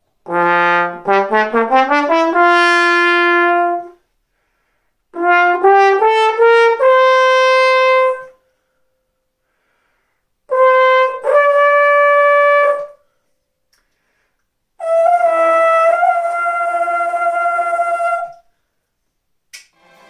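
Trombone playing four phrases with short silences between them: two quick rising runs of notes that each settle on a held note, then a two-note phrase, then one long held high note, each phrase ending higher than the last.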